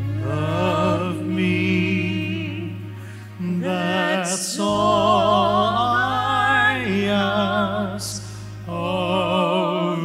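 A man and a woman singing a duet with vibrato, backed by a live band with a held bass note under the voices.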